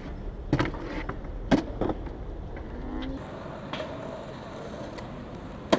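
Skateboard flip trick on concrete: several sharp clacks of the deck and wheels striking the ground in the first two seconds, over the steady rumble of urethane wheels rolling. About three seconds in the rumble gives way to open-air plaza ambience with a few faint knocks and one loud click at the end.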